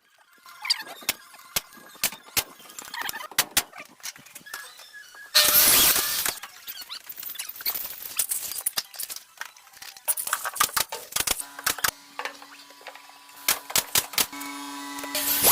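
Building work: scattered knocks and taps, a loud burst of harsh noise lasting under a second about five and a half seconds in, and a steady motor hum starting about eleven seconds in.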